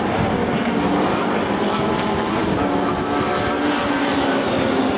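Steady loud drone of running machinery, its pitch wavering slightly.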